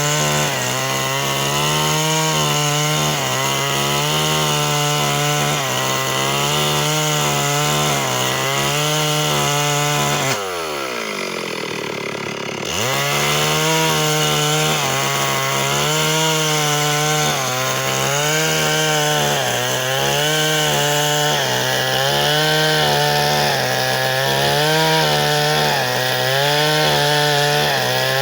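Two-stroke chainsaw running at full throttle, cutting wood, its pitch dipping slightly and recovering every second or two under the load. About ten seconds in the throttle is let off, the engine note falls sharply, then it revs straight back up.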